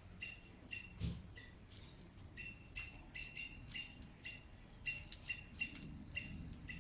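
A small bird chirping rapidly, short high chirps about three or four a second in runs, with a few faint clicks and knocks.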